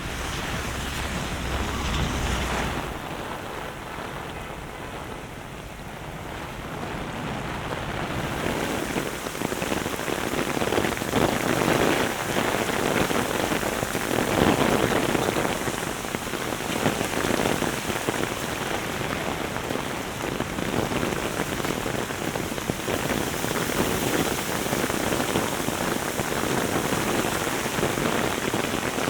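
Heavy rain pouring and pattering on hard surfaces, with wind buffeting the microphone for the first few seconds. The rain eases a little, then grows heavier again from about eight seconds in.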